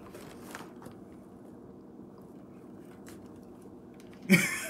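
Faint sipping through a straw, then about four seconds in a short, loud vocal outburst from a boy reacting to a mouthful of soy sauce.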